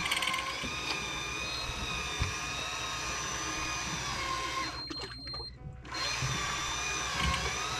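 Electric fishing reel's motor whining steadily as it winds in line, its pitch wavering slightly; the sound dips briefly about five seconds in.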